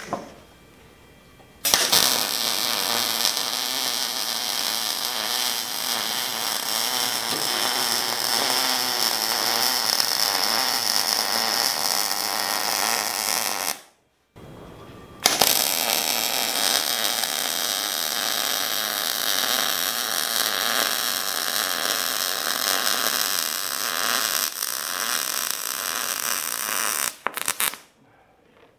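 MIG welding arc running steadily in two long runs of about twelve seconds each: it starts about two seconds in, breaks off for about a second and a half around the middle, and stops abruptly near the end.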